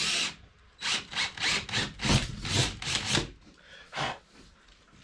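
Cordless drill with a wood bit boring a starter hole through a birch plywood panel: a run of short rasping bursts of cutting noise, about three a second, as the bit is worked through the wood.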